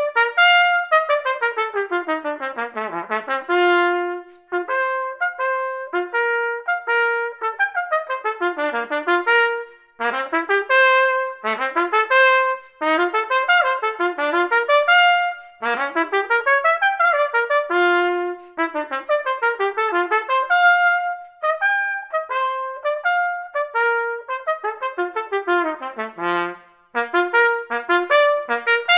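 Solo trumpet playing a fast, loud étude, strongly tongued, with quick runs up and down scales and arpeggios and short breaks between phrases.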